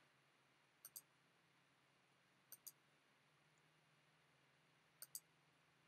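Faint computer mouse clicks over near silence: three clicks about two seconds apart, each a quick pair of ticks from the button being pressed and released.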